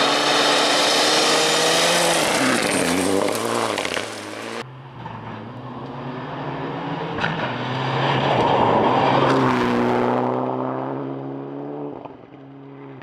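Mitsubishi Lancer Evolution rally car's turbocharged four-cylinder engine driving hard past at high revs, its pitch rising and dipping with throttle and gear changes. The sound cuts off suddenly about four and a half seconds in, then a second pass climbs to a peak and fades as the car drives away.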